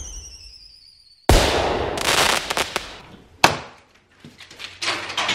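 Intro sound effects: a falling whistle, then a sudden loud bang that fades over about two seconds, and a sharp crack. Near the end comes rustling and scraping as plastic packing strap is pulled and cut on a cardboard box.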